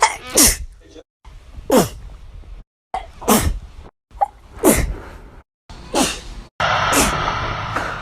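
A woman sneezing about six times, each sneeze a sharp burst that falls steeply in pitch, with abrupt dead-silent breaks between them.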